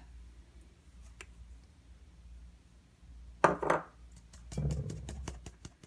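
A small metal mesh sieve being handled over a mixing bowl while cocoa powder is sifted: a short scraping rustle about three and a half seconds in, then a quick run of light ticks and taps as the sieve is shaken and knocked.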